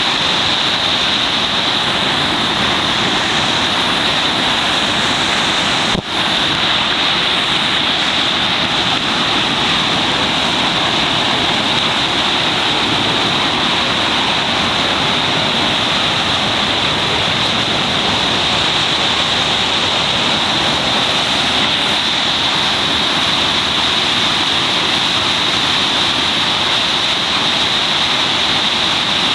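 Whitewater rapid pouring over a rocky chute: a loud, steady rush of churning water, with a brief dip about six seconds in.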